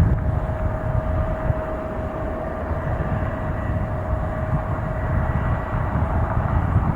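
Jet airliner engines running: a steady whining tone over a low, uneven rumble.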